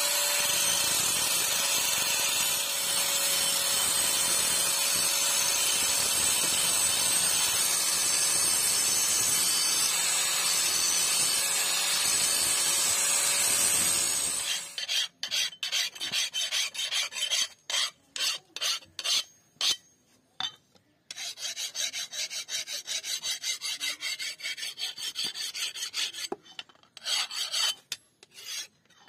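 Angle grinder running steadily with its disc grinding the edge of a steel cleaver, a loud even hiss with a faint whine. It cuts off suddenly about halfway through. Then a hand file rasps along the blade edge in quick, repeated strokes with short pauses between.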